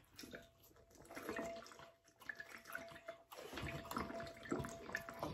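Faint sounds of liquid being drunk from a plastic water bottle, with sloshing and swallowing in irregular gulps.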